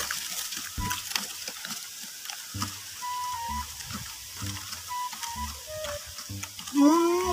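Wooden pestle pounding and grinding chillies and salt in a coconut-shell mortar: irregular dull knocks with scraping between them. Near the end a loud pitched call rises and falls for about a second, louder than the pounding.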